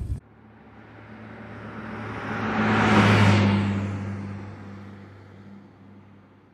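A road vehicle passing by: engine hum and tyre noise swell to a loud peak about three seconds in, then fade away.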